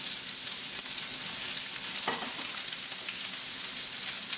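Onions frying in olive oil and rendered chicken fat in a pan: a steady sizzle with many small crackling pops.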